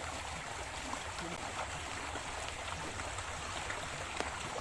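Small river flowing, a steady rush of running water, with a faint click about four seconds in.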